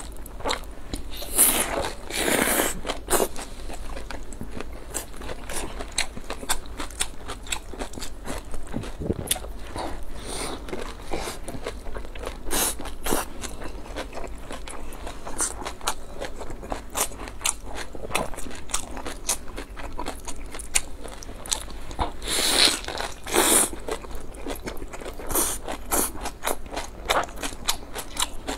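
Close-miked eating sounds: bites into a large rolled flatbread wrap and steady chewing, with many quick wet mouth clicks. Louder bites come near the start and again about 22 seconds in.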